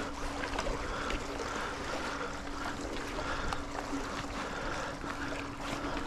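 Steady rush of a swollen, fast-flowing river, with a steady low hum, and faint scrapes and clicks as a magnet-fishing rope is hauled in hand over hand across a stone bridge parapet.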